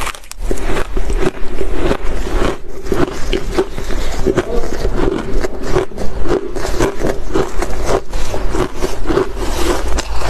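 Close-miked crunching and crackling of a mouthful of shaved ice being chewed, a dense run of small cracks, with the spoon scraping into the mound of shaved ice near the end.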